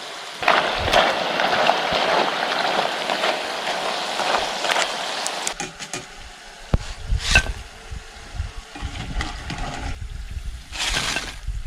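Potato sticks deep-frying in hot oil: a dense, grainy sizzle for the first five seconds or so, then a quieter bubbling with scattered small clicks and a brief louder hiss near the end.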